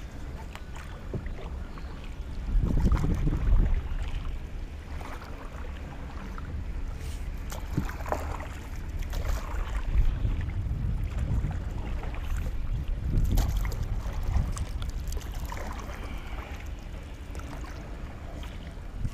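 Paddling a small boat: a single-bladed paddle dips and pulls through calm water every two or three seconds with splashes and drips, and wind rumbles on the microphone.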